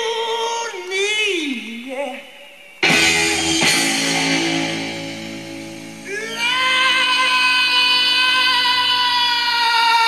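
Song with a singing voice playing back through a Fisher CD-4020 cassette deck. A sung phrase with sliding pitch comes first. Fuller music comes in suddenly about three seconds in, and near the end a long held note slowly falls in pitch.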